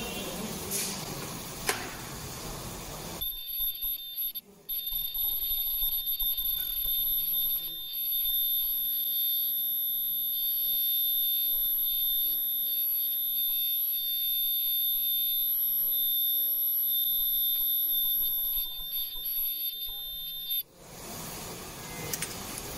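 A steady, high-pitched electronic tone like an alarm buzzer from a disposable mask making machine. It starts about three seconds in after a hiss and cuts off suddenly near the end, over a faint low machine hum.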